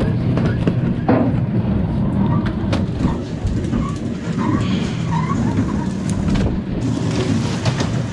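Steady low rumble of the boat's engine running, with a few sharp clicks and knocks on deck.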